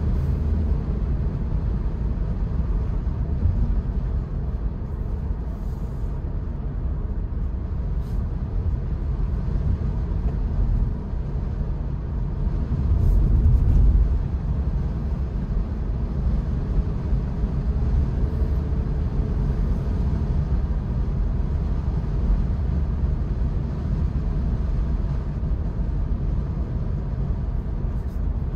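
Steady low road and wind noise inside a moving 2022 Honda Insight with the sunroof open, tyres rumbling on the pavement. About halfway through, a louder low swell lasts a second or two.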